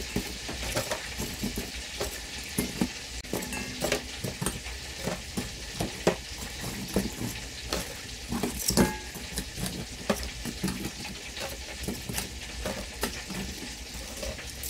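Metal tongs clicking and scraping against a stainless steel bowl and an aluminium foil pan as crisp fried lumpia are picked up and dropped into the pan. Many small clicks over a steady hiss, the loudest about nine seconds in.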